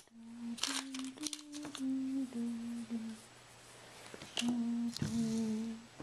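A person humming a slow tune with lips closed: held notes stepping up and down in two phrases, the second starting about four and a half seconds in, with a few light clicks mixed in.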